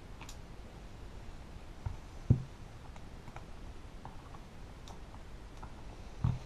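Small clicks and taps of hand tools and parts on an iPhone 5 being opened up on a workbench, with a sharper knock about two seconds in and another near the end.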